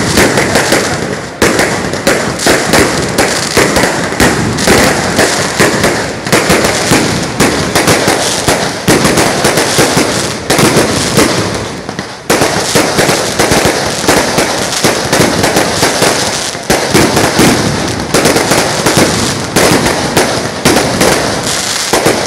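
Strings of firecrackers going off in a dense, continuous crackle of rapid bangs, the barrage briefly thinning and picking up again a few times.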